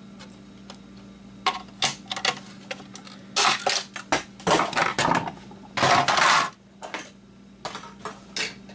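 Hard plastic clicking, scraping and clattering as a PlayStation 2's plastic casing is pried loose with a screwdriver and lifted off, with a longer scrape about six seconds in. A steady low hum runs underneath.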